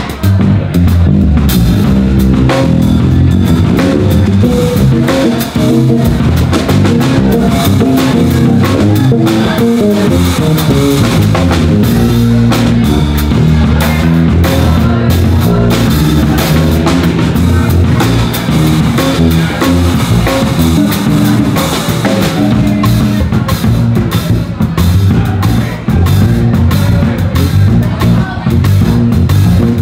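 Live instrumental jazz-funk played by two electric bass guitars, one of them a six-string, over a drum kit; dense, busy bass lines with steady cymbal and drum hits.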